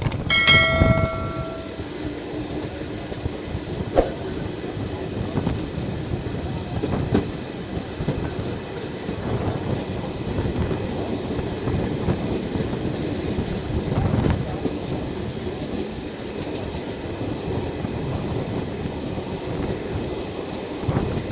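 Egyptian passenger train departing slowly: a short horn blast of several stacked tones in the first two seconds, then the steady rumble of the train rolling out, with a sharp click about four seconds in.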